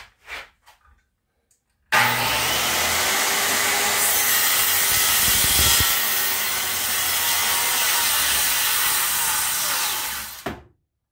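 Makita corded circular saw with a framing blade, started abruptly about two seconds in and run steadily as it is lowered into a wooden board in a plunge cut, then stopping sharply near the end. A few light handling clicks come before it starts.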